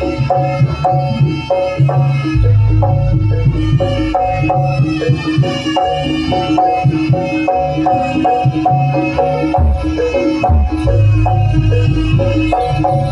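Live Javanese jaranan ensemble music played loudly through a PA: a quick repeating pattern of pitched gamelan notes over heavy drumming and deep bass.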